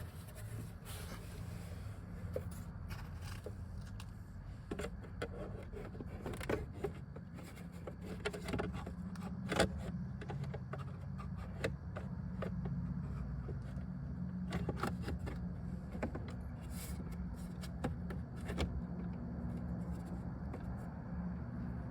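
Plastic dashboard trim being handled and pushed into place: scattered clicks, knocks and scrapes over a steady low hum.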